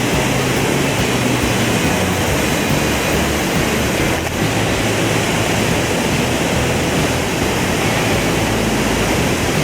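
Steady roar of a waterfall, Dicks Creek Falls, pouring into its plunge pool close by.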